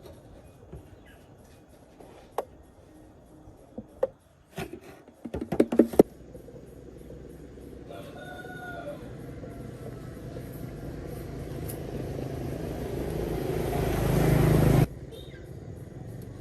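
A rooster crowing in the background, with a few sharp knocks and then a quick run of them about five to six seconds in. After that a steady noise swells for several seconds and cuts off suddenly near the end.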